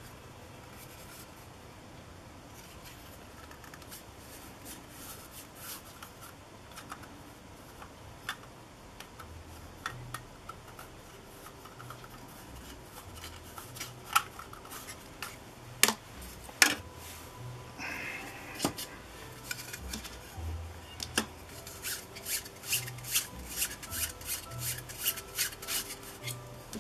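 Black plastic petal lens hoods handled and rubbed with a cloth, with scattered sharp plastic clicks and knocks that come in a quick run over the last few seconds.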